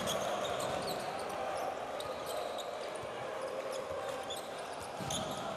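A basketball being dribbled on a hardwood court over the steady noise of an arena crowd, with short high squeaks through it.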